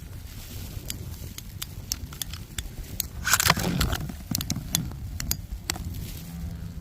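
Snowstorm wind rumbling on the microphone, with scattered sharp clicks and a louder rustle and scrape about three and a half seconds in.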